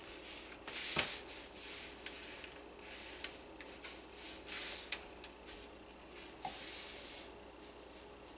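Faint scraping and soft wet stirring as a whisk and a silicone spatula work thick hot-process soap batter in a crock pot, with a few light clicks, the sharpest about a second in.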